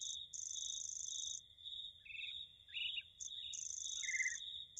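Insect-and-bird nature sound: a cricket-like high chirp pulsing steadily throughout, two buzzy, very high insect trills of about a second each (near the start and towards the end), and short, gliding bird chirps in between.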